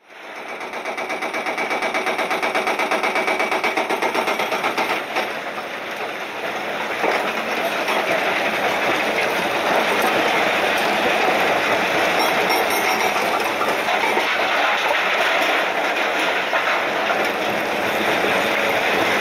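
Heavy quarry machinery: a New Holland Kobelco E305C tracked excavator's diesel engine and hydraulics working over a rock pile, with rock clattering. The din fades in at the start, carries a fast rattling pulse for the first few seconds, then settles into a steady loud clatter.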